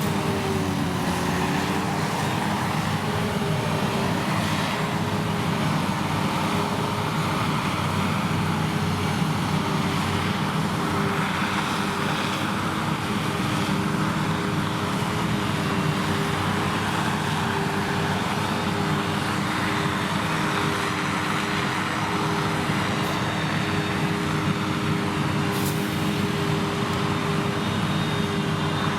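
Krone Big X 1100 self-propelled forage harvester running under full load while chopping triticale: a steady, loud drone of engine and crop-processing machinery with an even hum, its pitch dipping slightly about a second in and then holding.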